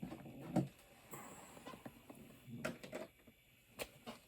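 Faint handling noises: a few separate light clicks and taps with a little rustling, as objects are handled and set down.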